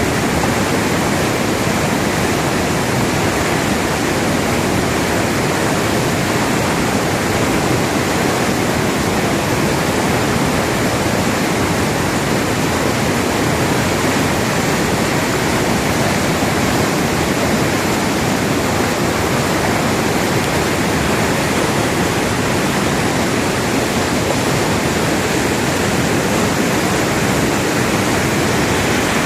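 Waterfall in flood after heavy rain, a loud steady rush of falling water.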